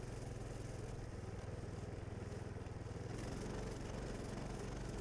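Coleman Mini Bike 200's small single-cylinder four-stroke engine running steadily as the mini bike rides along a snowy trail.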